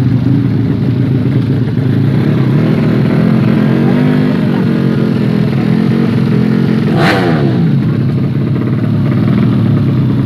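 Motorcycle engines running, with one bike loud and close about seven seconds in, its pitch sweeping sharply down.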